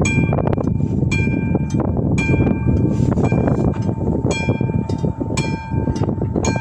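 Classic mechanical bell of a railway level crossing ringing in repeated strokes, about one or two a second, each leaving a clear ringing tone. Under it runs the loud rumble and clatter of a train passing over the crossing.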